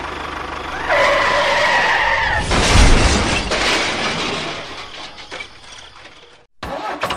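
A small motor whirs with a fast low pulse. About a second in, a squealing tone like skidding tyres holds for a second and a half. It is followed by a loud rushing crash that fades away over several seconds.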